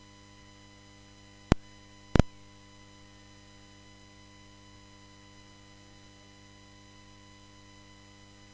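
Steady electrical hum with a thin high whine from the chamber's microphone and sound system, no one speaking. Two sharp clicks cut through it, one about a second and a half in and a quick double just over two seconds in.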